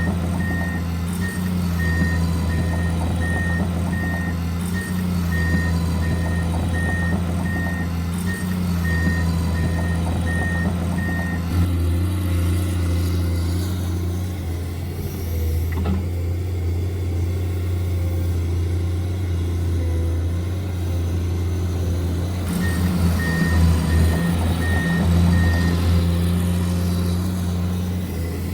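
An RC construction model's electronic sound module plays a simulated diesel engine hum while a reversing beeper beeps steadily, stopping about 11 seconds in and coming back for a few seconds near the end.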